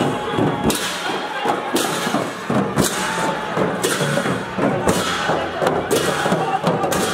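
A crowd of men shouting and calling while they haul a wooden festival chariot on its poles, over a steady percussion beat that crashes about once a second.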